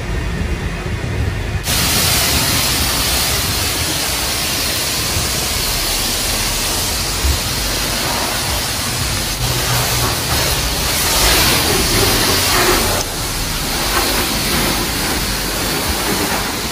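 Car wash high-pressure wand spraying water onto a car's body panels: a loud steady hiss that starts suddenly about two seconds in, swelling and easing as the spray moves over the car.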